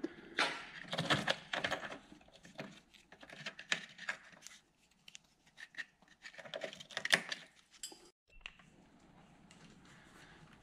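Small metallic clinks and scrapes as a loosened steel body-to-frame bolt with its washer is turned out by hand and drawn from its hole in the car's door sill, coming in a few short clusters.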